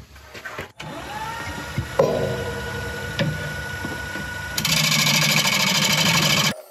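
Wood lathe motor spinning up with a rising whine that settles into a steady hum, with a single knock about two seconds in. Near the end, a loud hiss of a gouge cutting into the spinning olive ash bowl, making the final cuts on its inside.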